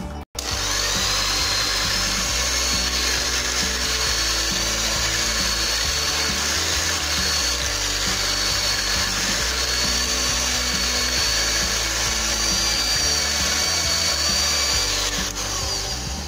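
Electric hand mixer running steadily with a constant high whine, its twin beaters whisking a thin liquid cake batter. It starts just after the beginning and switches off about a second before the end, with background music underneath.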